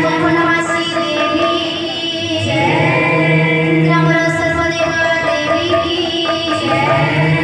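Live Odia kirtan music: a woman singing through a microphone over held steady notes, accompanied by a double-headed barrel drum (mridanga).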